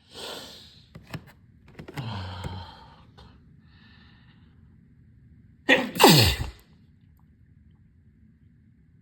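A person sneezing: a breathy gasp at the start, a sneeze about two seconds in, and a louder sneeze about six seconds in, its pitch dropping sharply.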